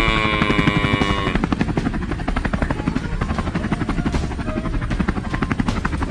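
Helicopter rotor sound effect: a fast, even chopping of the blades that runs on steadily.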